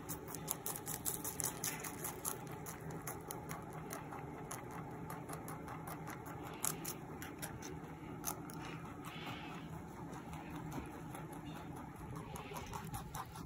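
A rabbit chewing fresh cilantro stems and leaves: quick, crisp crunching clicks in fast runs, over a steady low hum.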